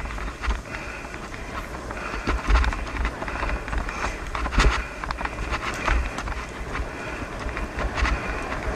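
Bike rolling fast over a rough dirt trail: wind buffeting the microphone with a low rumble, tyre noise, and frequent rattles and knocks as the bike bumps along.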